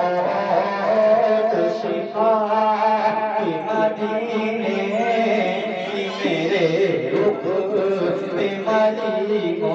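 A man singing an Islamic devotional chant into a microphone over a PA system, in long, gliding, ornamented phrases over a steady low hum.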